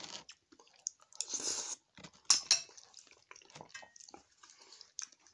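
A person chewing a spoonful of canned sprats in tomato sauce, with wet mouth sounds and smacks, and a sharp click a little over two seconds in.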